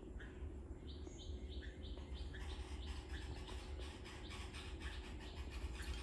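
Red-vented bulbuls chirping at their nest: a quick series of short, high chirps, sparse at first and then about three or four a second from a second in.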